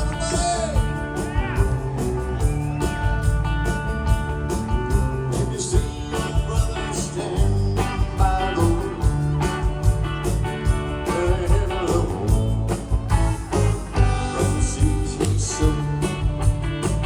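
Live country-style band music: guitar and singing over a steady beat.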